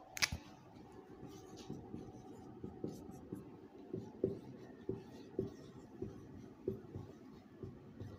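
Marker pen writing on a whiteboard: a sharp click just after the start, then a run of short strokes and taps, about one or two a second.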